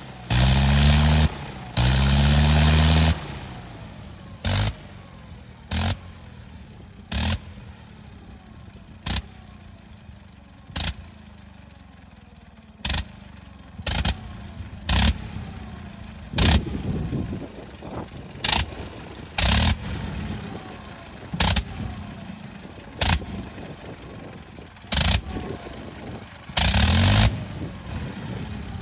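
Gnome Monosoupape nine-cylinder rotary engine running on the ground. It runs loud and continuous for about three seconds, then drops away and fires only in short bursts every second or two, coasting with falling pitch in between. This is typical of a rotary engine held at low speed by blipping its ignition.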